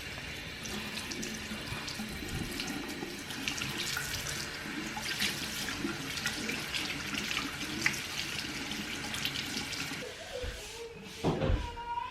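Water running from a tap into a sink, shutting off about ten seconds in. A thump follows near the end, with a short wavering call.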